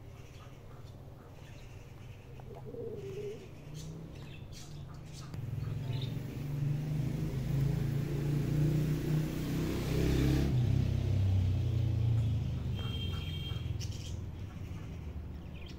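A motor vehicle's engine rumbling past, swelling over several seconds and then fading, with a few bird chirps near the end.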